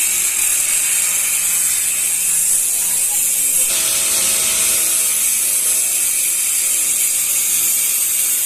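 Angle grinder with a cutting disc running steadily through a steel cable tray, a loud, continuous high-pitched hiss whose motor tone shifts a little over three and a half seconds in.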